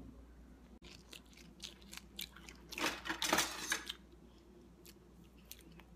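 Quiet, scattered clicks and taps of fingers on a phone while texting, with a brief louder rustle about three seconds in.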